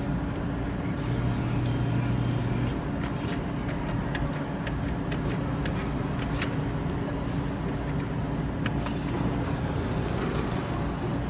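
Claw machine running: a steady low hum, a brief motor tone about a second in, and a string of sharp clicks through the middle.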